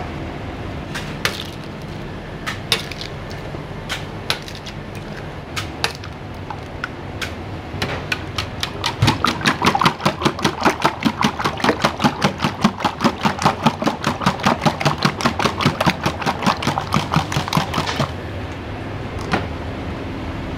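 Rapid, even knocking from kitchen prep work, about five or six strokes a second for roughly nine seconds. Before it come a few scattered knocks and clinks, and a steady kitchen hum runs beneath.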